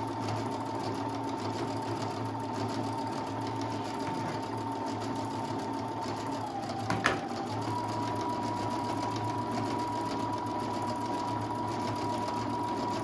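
Brother Innov-is 200 computerized sewing machine running steadily as it sews a programmed stitch pattern, its motor giving a steady whine. About seven seconds in there is a click and the whine dips slightly lower for a moment before settling back.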